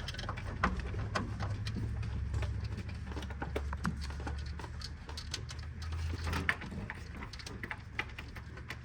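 Scattered light clicks and taps of hand tools and metal parts being handled during engine installation work, over a steady low hum.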